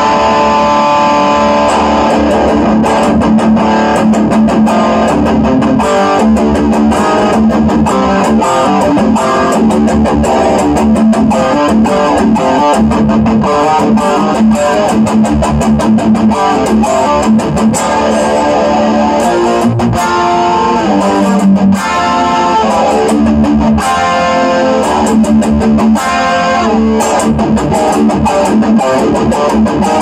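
Cort KX100 electric guitar with humbucking pickups being played: a continuous passage of many quickly changing picked notes.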